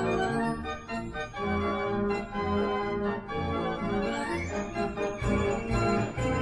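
Background music with held, organ-like chords.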